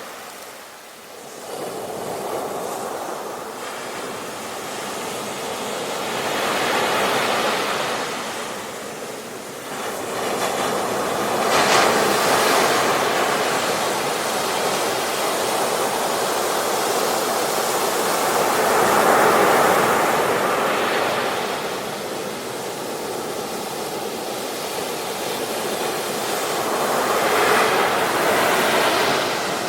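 Ocean surf on a beach: waves breaking and washing up the shore. The noise swells and falls away every several seconds, with the loudest surges about twelve and nineteen seconds in.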